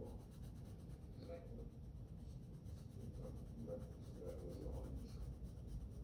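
Coloured pencil shading on paper: a soft, fast, even scratching of quick back-and-forth strokes.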